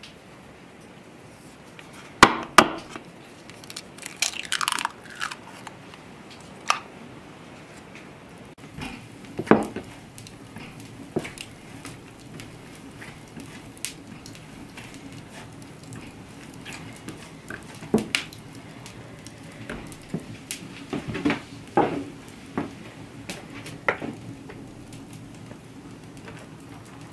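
Pastry dough being mixed and kneaded by hand in a wooden dough bowl: an egg cracked with two sharp taps about two seconds in, then scattered soft knocks, crunches and taps of hands and dough against the wood.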